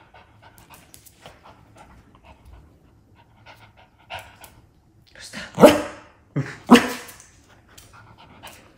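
Toy poodle panting, then barking twice, loudly, about a second apart just past the middle.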